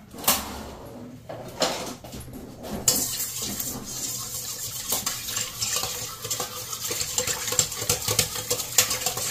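Wire whisk beating a runny egg-and-milk mixture in a stainless steel bowl. The whisk clinks and scrapes rapidly against the metal. A few separate knocks come first, and the steady beating starts about three seconds in.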